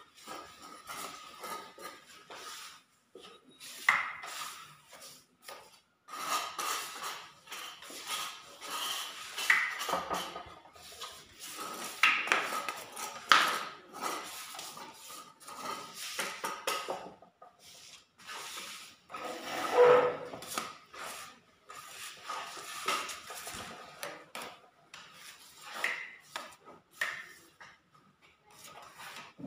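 Hand trowel working skimcoat: irregular scraping and rubbing with sharp metallic clinks and knocks, the loudest about 4 s in, around 12–13 s and near 20 s, over a faint steady hum.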